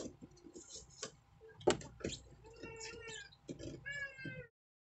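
Scattered light clicks and taps from makeup tools and a hand mirror being handled, the sharpest about a second and a half in. Near the end comes a faint, high-pitched wavering sound, then all sound cuts off abruptly.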